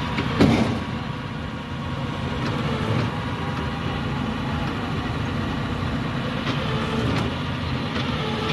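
Heavy road-rail truck's engine running steadily as the truck creeps along the track on its rail guide wheels, with a single sharp clank about half a second in.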